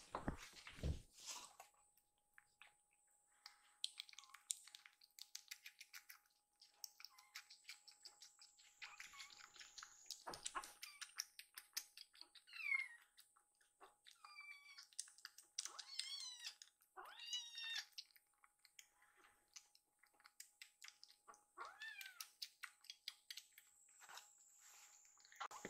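Kitten suckling from a milk nursing bottle, making many quick little clicks, with several high mews from about halfway on.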